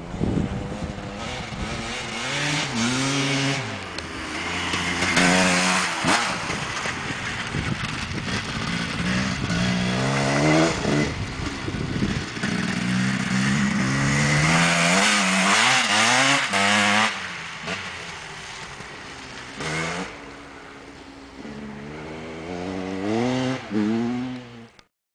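Enduro dirt-bike engine revving hard as the bike accelerates, the pitch climbing and dropping back several times as it shifts gears and comes off the throttle. The sound cuts off suddenly near the end.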